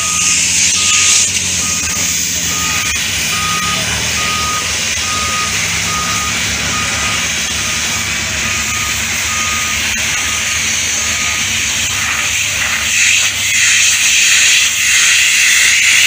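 A construction vehicle's reversing alarm beeping steadily, a little faster than once a second, over a diesel engine running; the beeping stops about three-quarters of the way through. Near the end a louder hissing rush becomes the loudest sound.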